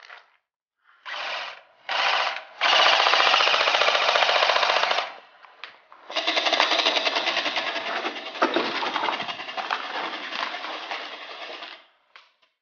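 Airsoft rifle firing on full auto close by: two short bursts, then a long burst of about two and a half seconds and another of nearly six seconds, each a fast, even rattle of shots.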